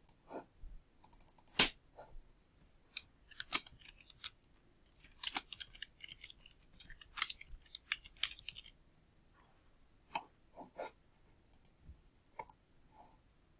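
Computer keyboard typing and mouse clicks: irregular short taps, in a quick run in the middle and a few scattered clicks near the end.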